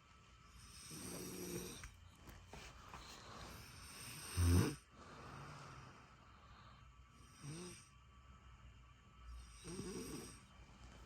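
Snoring in slow, regular breaths about three seconds apart. The loudest is a deep, snorting snore about four and a half seconds in.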